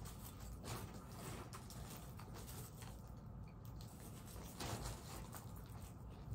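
Faint rustling and small clicks of clothing and packaging being handled, with two slightly louder rustles about a second in and near five seconds in.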